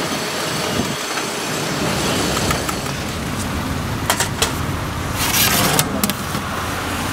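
Steady road traffic hum. A couple of sharp clinks come about four seconds in, and a brief rasping noise follows about a second later.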